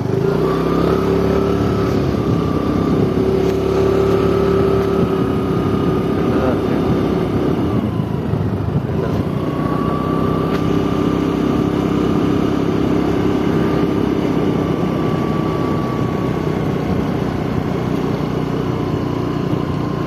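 Motorcycle engine running steadily on the move, its note drifting gently up and down with the throttle, over a rush of wind and road noise.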